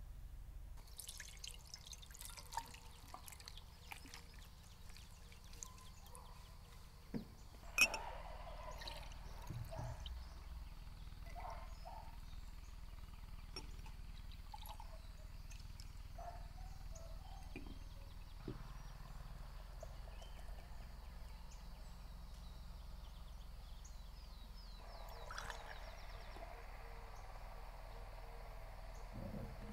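Liquid pouring and dripping, with scattered light clicks and a sharp knock about eight seconds in, the loudest sound.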